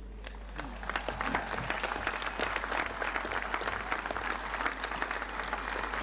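Large outdoor crowd applauding, the clapping building over the first second and then holding steady.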